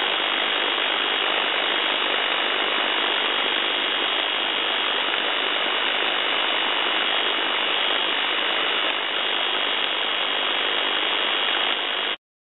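Repetitive electrical impulse noise (REIN) from a faulty electrical device, picked up on a shortwave receiver in upper-sideband mode on 18.140 MHz: a steady, dense noise filling the receiver's audio, with a thin steady tone near the top. It cuts off abruptly near the end.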